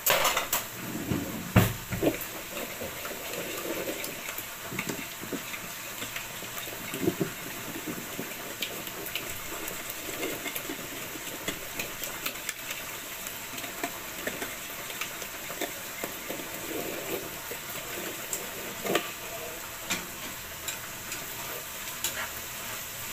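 Wire whisk clicking and scraping against a glass bowl as eggs and grated Parmesan are beaten, with a few louder knocks near the start. Under it runs the steady sizzle of bacon cubes frying in a pan.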